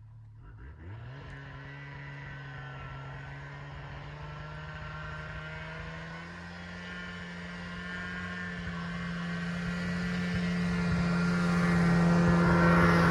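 Snowmobile engine running at a steady pitch after revving up about a second in. It grows steadily louder as it approaches, and is loudest near the end as it passes close by.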